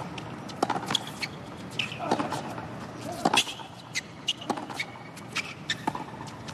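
Tennis baseline rally on a hard court: about five sharp racquet strikes on the ball, roughly every second and a quarter, with fainter ball bounces between them.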